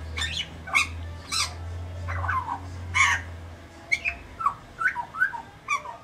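Grey butcherbird calling: a loose series of about a dozen short notes, some harsh squawks and some brief clear notes that slide in pitch.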